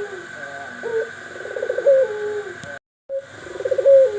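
Pelung bird calls repeated about every two seconds: each phrase is a quick stuttering trill that slides into a falling cooing note. The sound cuts out briefly to silence about three seconds in, then the call resumes. A faint steady high tone runs underneath.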